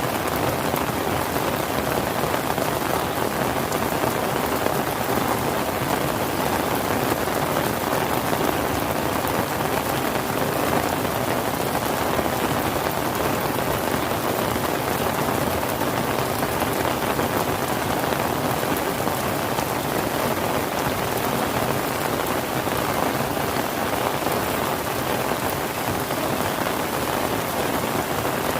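Steady rain falling and pattering on surfaces, a constant even hiss with no breaks or distinct events.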